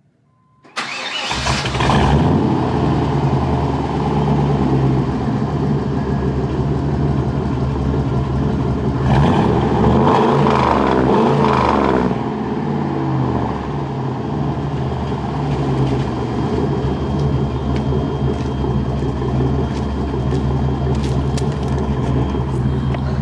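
1998 GMC K3500's 454 (7.4L) big-block V8 starting through its new 3-inch mandrel-bent dual exhaust and mufflers. It catches about a second in and settles into a steady idle, with a brief rev about nine seconds in. It sounds good and healthy.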